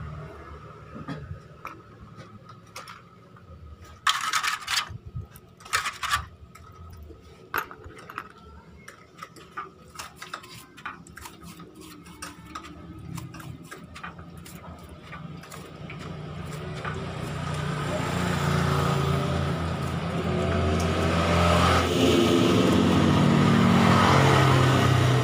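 A paintbrush scrubbing motorcycle starter-motor parts in a tray of cleaning fluid, with clicks and knocks of the metal parts, loudest about four and six seconds in. Behind it a vehicle engine runs, swelling louder through the second half until it is the loudest sound.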